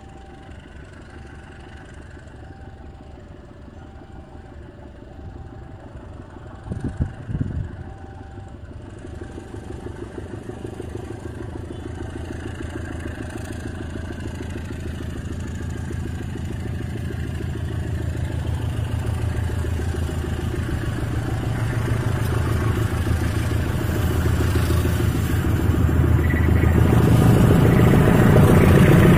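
KAI CC206 diesel-electric locomotive hauling a passenger train, its engine and running gear growing steadily louder as it approaches. A brief louder noise comes about seven seconds in.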